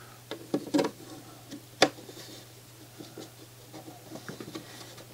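Plastic CD tray of an NAD C540 CD player being handled and fitted onto its drive mechanism: scattered light plastic clicks and rattles, with one sharper click a little under two seconds in.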